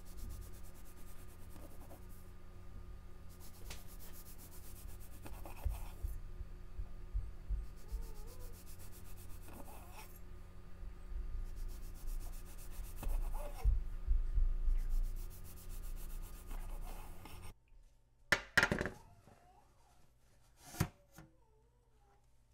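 Soft rubbing and handling sounds with occasional light knocks and thumps over a steady hum. Near the end the hum cuts out, leaving a quieter room with a few sharp clicks.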